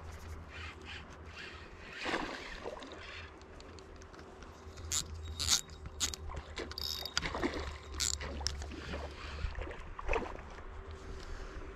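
Spinning reel and rod being handled while a hooked fish is reeled in: irregular clicks and scrapes, busiest in the middle, over a steady low rumble.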